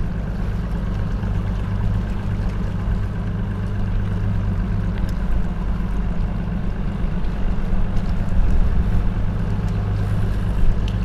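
Bass boat's outboard motor running steadily at low speed, an even low hum.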